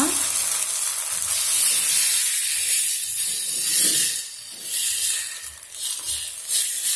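Rice-and-coconut appam batter sizzling and hissing as it is ladled into a hot, oiled appam pan. After about four seconds the sizzle drops and comes in short surges as more batter goes in.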